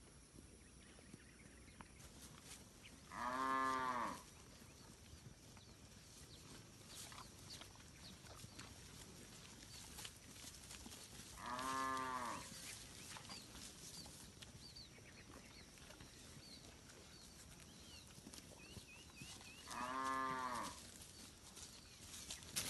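Village cattle mooing: three separate moos, each about a second long, spaced roughly eight seconds apart.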